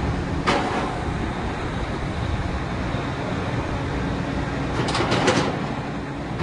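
Drilling rig machinery running with a steady drone, broken by a short hissing or clattering burst about half a second in and a quick cluster of three or four more near the end.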